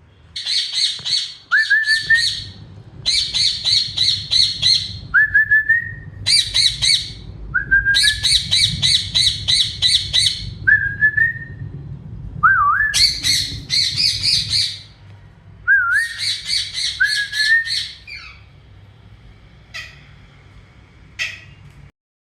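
Pet parrots squawking in harsh, rapid bouts of about six pulses a second, each bout broken by a short rising whistle, typical of a squabble between caged parrots. The calls die down to two faint ones near the end.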